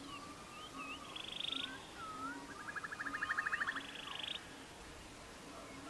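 Faint nature recording of animal calls: short swooping chirps and rapid pulsed trills, the louder trill lasting a second and a half about two and a half seconds in.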